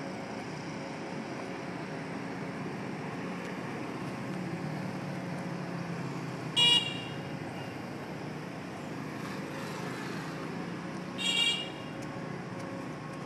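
Street traffic noise with a steady low engine hum, broken by two short, high-pitched vehicle horn toots: a brief, loud one about halfway through and a slightly longer one near the end.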